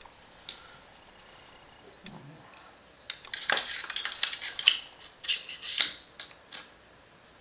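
Metal rifle parts clinking and rattling as an AR-15 upper receiver is handled. A quick run of sharp clicks and clatter starts about three seconds in, the loudest near the end.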